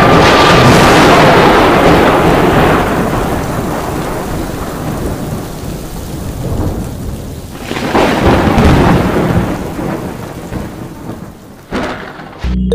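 Thunderstorm sound effect: rain with rolling thunder. A loud peal at the start dies away over several seconds, and a second rumble swells about eight seconds in.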